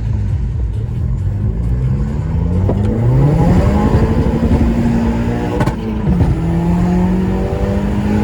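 Seat Leon 1.8T 20-valve turbocharged four-cylinder engine accelerating under load: its pitch climbs over a couple of seconds and levels off, drops briefly with a sharp click about six seconds in, then holds and rises again.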